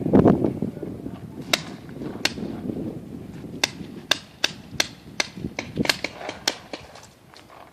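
Paintball guns firing: a dozen or so sharp pops at uneven spacing, some in quick pairs, getting fainter near the end.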